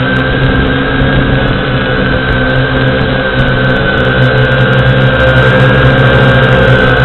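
A small motor running steadily and loudly close to the microphone, a constant whine at a fixed pitch that wavers only slightly.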